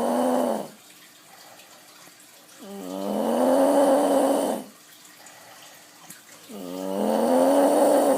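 Snoring: three long pitched snores about four seconds apart, the first trailing off just under a second in, each rising in pitch at its start and then holding.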